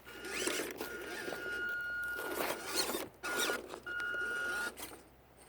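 Small electric motor of a WPL B36 RC truck whining at a steady pitch in several short stretches of throttle, mixed with rough scraping and rustling noise as it moves through mud and brush.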